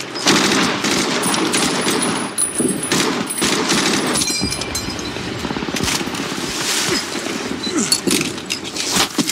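Dense battle gunfire, many shots overlapping in rapid succession without a break.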